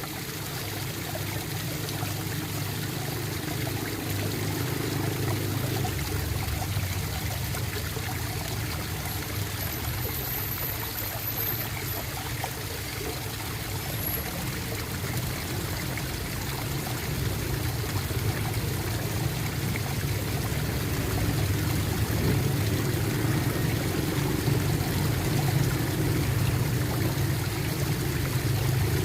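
Water flowing and gurgling steadily, like a small stream trickling over stones.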